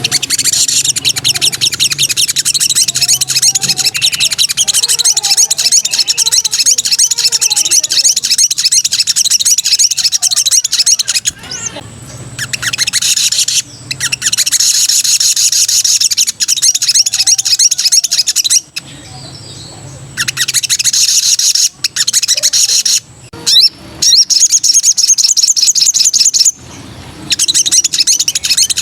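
A sogon sunbird singing energetically: long runs of very rapid, high-pitched chattering trills, broken now and then by short pauses.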